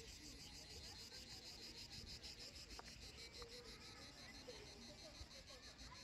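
Crickets chirring faintly in a fast, even pulse: a high, steady insect trill.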